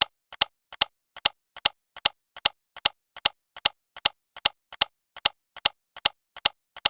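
Steady mechanical-sounding ticking, like a clock: a loud tick about two and a half times a second, each with a fainter click just ahead of it.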